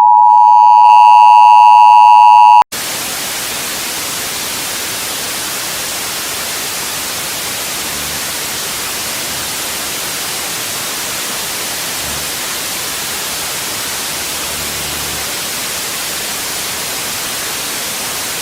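Emergency Alert System two-tone attention signal, a loud steady dual tone, cuts off abruptly about two and a half seconds in. Steady white-noise static follows, quieter than the tone.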